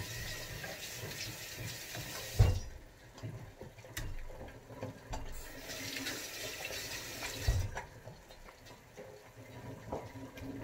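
Kitchen tap running into a sink, stopped about two and a half seconds in with a loud thump; it runs again for a couple of seconds and stops with another thump.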